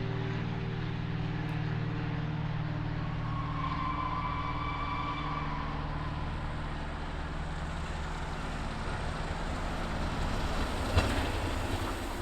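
Train of coaches hauled by the Peppercorn A1 Pacific steam locomotive 60163 Tornado, rumbling past at speed on the rails as a steady noise, with a low hum that fades over the first few seconds and a single sharp click near the end.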